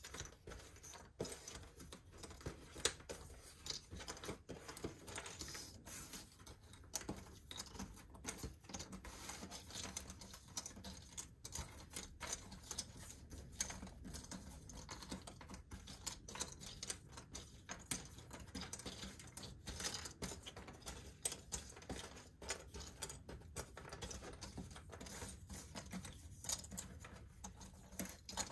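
Jigsaw puzzle pieces being handled on a table: a dense, irregular run of small clicks and taps as pieces are picked up, flipped and set down.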